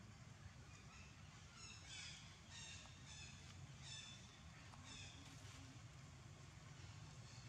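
Faint, short high-pitched animal calls, repeated every half second to a second and mostly over the first five seconds, above a low steady hum.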